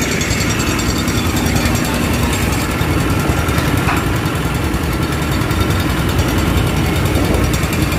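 Chang Hong single-cylinder diesel engine running steadily under load, driving a belt-driven emergency fire pump, with the rush of the water jet from the pump's outlet.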